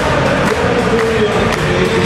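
Football crowd singing a chant together, a wavering melody carried over the noise of the stand.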